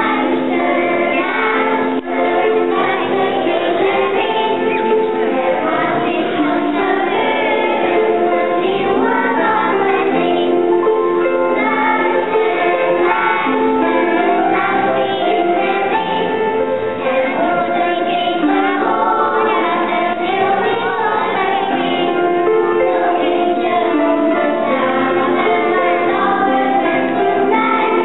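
Children's choir singing a song in unison, with instrumental accompaniment under the voices.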